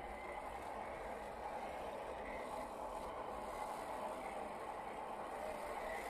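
Electric motor and geared drivetrain of a 1/10-scale RC crawler truck running steadily as it crawls over lumpy dirt and grass.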